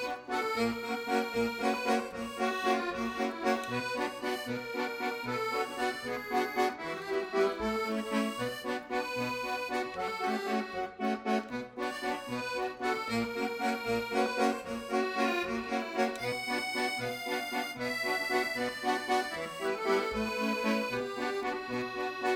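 Background music: an accordion playing a lively, rhythmic tune over a plucked bass accompaniment.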